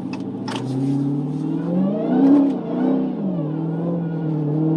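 Dodge Challenger Hellcat Redeye's supercharged 6.2-litre V8 accelerating hard on a wet road. The revs climb, then surge up and drop back twice as the wide rear tyres struggle for grip and traction control reins the engine in, before settling into a slower climb.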